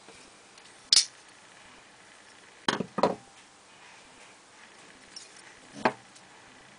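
Sharp clacks of open Hinderer XM-24 folding knives being set down on and picked up from a wooden tabletop: one about a second in, a close pair near three seconds, and another near six seconds.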